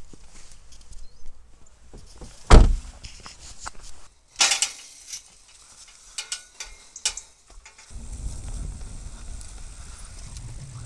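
A loud thump, then clattering and a few clicks, followed from about eight seconds in by the steady low rumble of a mountain bike rolling along a dirt trail.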